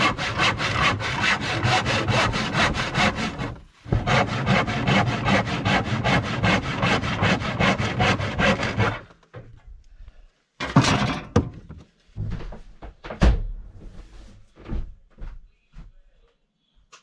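Hand saw cutting through a 2x6 wooden board in quick, regular back-and-forth strokes. It pauses briefly about four seconds in and stops after about nine seconds. A few scattered knocks and clunks follow as the wood is handled.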